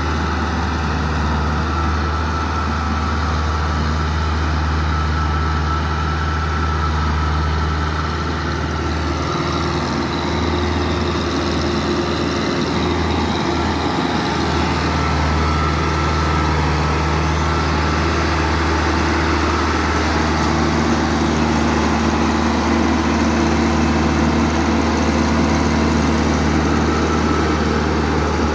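Old diesel farm tractor's engine running steadily and hard under load, a constant low drone, as it hauls a heavily loaded sugarcane trolley.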